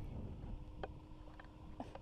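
Low, rumbling wind noise on the microphone with a faint steady hum under it, and two light clicks, the first a little under a second in and the second near the end.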